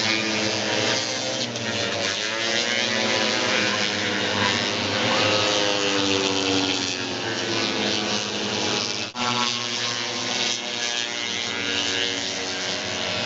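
Several single-cylinder racing snowmobiles running at high revs together, their engine notes rising and falling as they pass. The sound drops out for an instant about nine seconds in.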